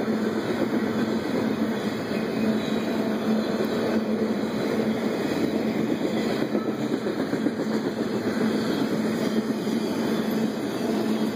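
A CSX intermodal freight train of semi-trailers on flatcars rolling past. Its steel wheels make a steady noise on the rails, with a constant hum running under it.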